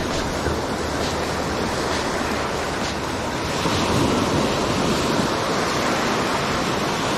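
Ocean surf breaking and washing through the shallows, a steady rush of foaming water that grows louder as a wave breaks about four seconds in.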